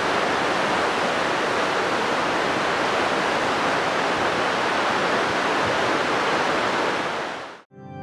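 Rushing water: a steady, even roar of flowing water that fades out near the end, where organ background music begins.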